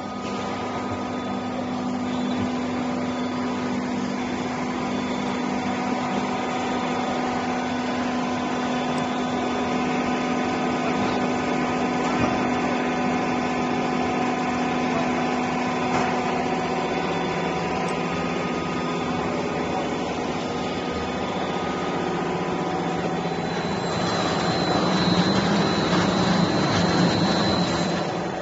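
Metal roofing sheet roll-forming machine running: a steady machine hum with several steady tones over a mechanical rumble. Near the end it grows louder, and a high whine joins in.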